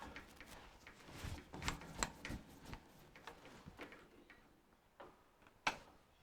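Irregular metallic clicks and knocks of a parting tool being set in a metal lathe's tool post and locked down, with a cluster of clicks and dull thumps about a second and a half in and one sharp click near the end. The lathe is not running.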